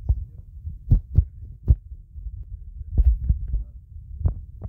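Irregular thumps and knocks over a low rumble: a phone being handled close to its own microphone, with fingers tapping and gripping the phone.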